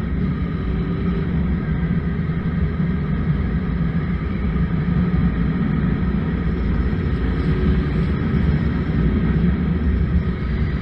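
Suzuki 1200 Bandit inline-four engine running at a steady cruise while riding, heard under heavy wind rush on the microphone.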